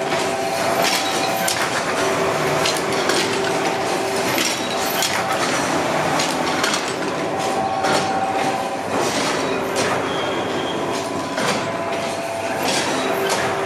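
Paper-tube rolling machinery running: a steady mechanical clatter full of irregular clicks and knocks, over a motor hum that fades in and out.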